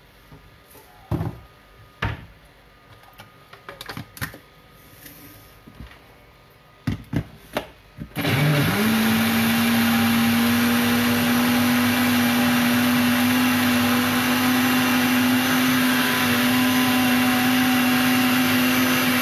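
A few knocks and clicks of handling, then about eight seconds in an electric countertop blender switches on and runs steadily with a constant hum, blending a liquid mixture.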